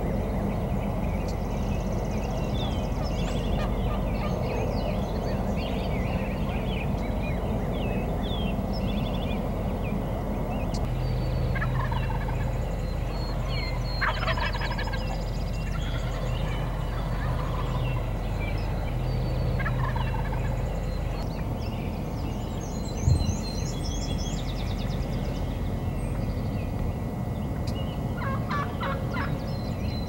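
Wild turkey toms gobbling several times while strutting in display. Small songbird chirps and a steady low background noise run underneath.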